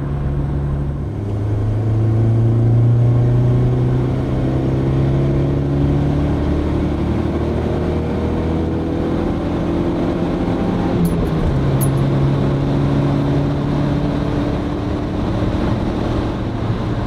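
Audi 80 B4's 2.0-litre eight-valve four-cylinder engine pulling hard under full acceleration, heard from inside the cabin. Its pitch climbs slowly and drops back at a gear change about eleven seconds in, then climbs again.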